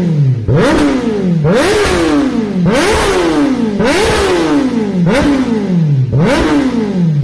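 Kawasaki Ninja sportbike engine revved repeatedly in quick throttle blips, about one a second, each jumping up sharply in pitch and then falling back toward idle.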